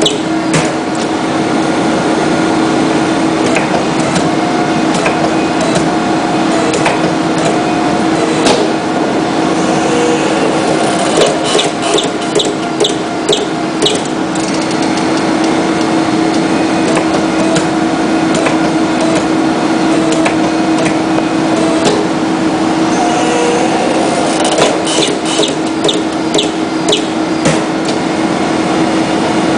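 Hydraulic briquette press running with a steady hum, with short runs of sharp clicks and knocks now and then.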